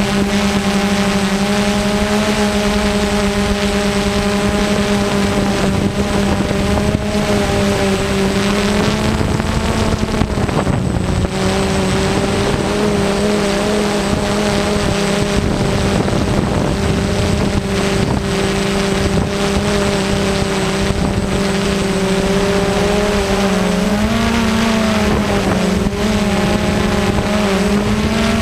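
A multirotor drone's electric motors and propellers humming steadily over a rush of air, the pitch dipping and shifting a little about ten seconds in and again near the end as the drone adjusts its hover.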